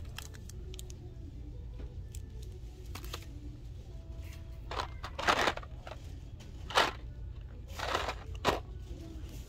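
Cardboard candy boxes sliding and scraping as they are handled and pulled from a wire display bin: several short scrapes from about five seconds in, over a steady low hum.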